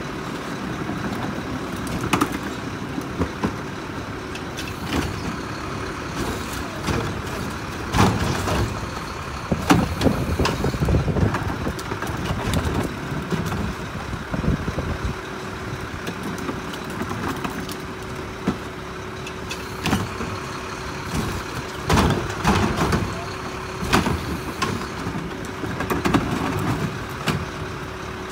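Front-loader garbage truck idling, with repeated thumps and clatter as plastic trash carts are wheeled and bumped about beside it. A steady thin tone joins the engine hum about halfway through.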